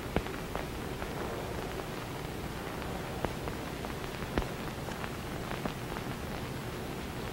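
Steady hiss with a few light, irregular clicks scattered through it, the sharpest about four seconds in.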